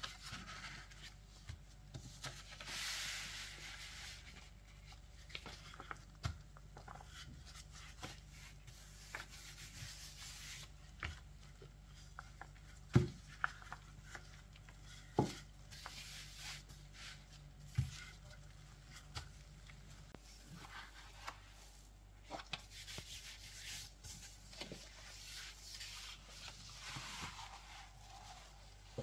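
Wooden rolling pin rolled back and forth over a sheet covering shortcrust pastry dough: a faint rubbing with soft swishes of the sheet. A few sharp knocks, the loudest about halfway through.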